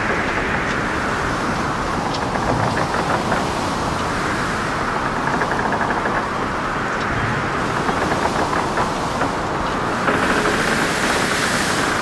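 Steady outdoor rushing noise with a wavering hiss and a few faint clicks, and no voices or music.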